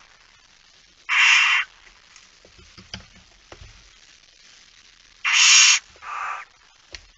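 Barn owl calls: three harsh, hissing screeches of about half a second each, one about a second in and two close together near the end, the last shorter and weaker. Faint scratching and shuffling on the nest litter is heard between them.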